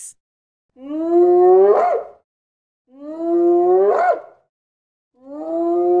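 Spotted hyena calling: three long drawn-out calls about two seconds apart, each rising slowly in pitch, the first two ending in a quick upward sweep.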